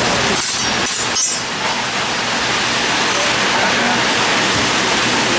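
Metal spatulas scraping and clinking on a steel flat-top griddle, a few quick scrapes about half a second to a second and a half in. Under them runs a loud, steady rushing noise from the kitchen.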